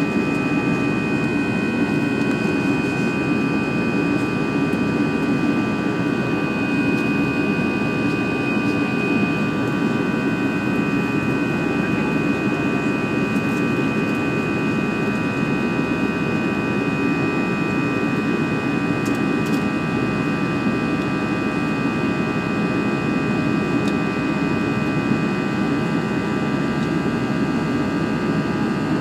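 Airbus A320 jet engines at climb power heard from inside the passenger cabin: an even roar with several steady high whining tones over it.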